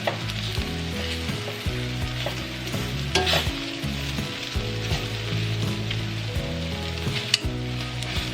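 Cornstarch-dipped flank steak strips sizzling steadily in oil in a frying pan. Metal tongs click sharply against the pan twice as the pieces are turned, about three seconds in and again near the end.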